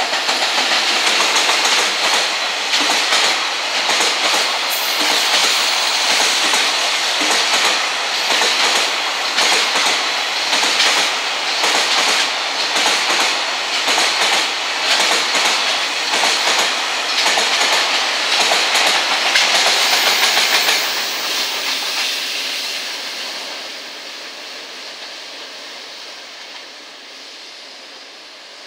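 Container freight train of sixteen wagons rolling past, its wheels clattering over the rail joints in a dense, steady rattle. From about twenty seconds in the noise fades away as the train's tail passes and it recedes.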